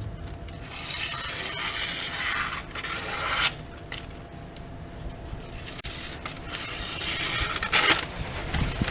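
Knife blade drawn repeatedly across a Washboard freehand sharpening system, a series of scraping strokes each about a second long.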